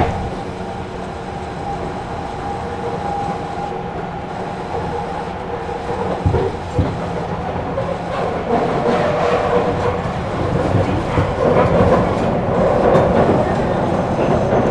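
Running sound inside a Tobu electric train car: a steady traction-motor and inverter whine in the first half, two wheel clicks over rail joints about six seconds in, then louder wheel-and-rail rumble that grows through the rest.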